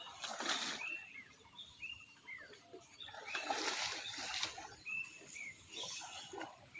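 Muddy pond water splashing and sloshing in bursts as people wade through it dragging a fishing net, with short bird chirps between the splashes.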